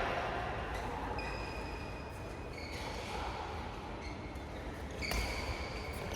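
Low room noise in a badminton hall between rallies, with a faint high-pitched squeak about a second in and again about five seconds in.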